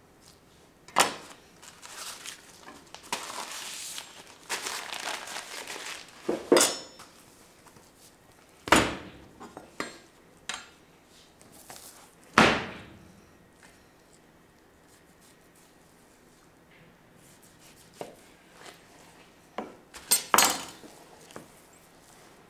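Metal cooking utensils clanging against a teppanyaki griddle: about five sharp, ringing clangs spread out, with a few seconds of rough scraping noise between the first ones.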